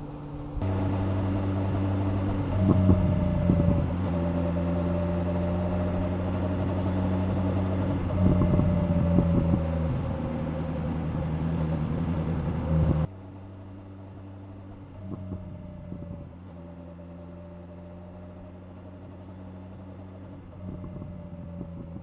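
Motorcycle engine running at a steady cruise with wind and road noise, picked up by a clip-on wireless microphone tucked inside a foam applicator. The sound cuts in suddenly near the start and drops abruptly to a much quieter clip about thirteen seconds in.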